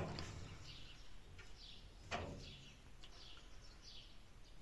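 Faint, short, high bird chirps, each falling in pitch, repeating several times. There is a sharp click at the start and another about two seconds in.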